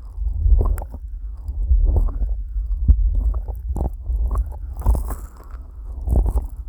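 Fingers rubbing and pressing on the silicone ears of a 3Dio binaural microphone, slick with petroleum jelly: dull rubbing strokes at an irregular pace over a low rumble, with a few sharper clicks.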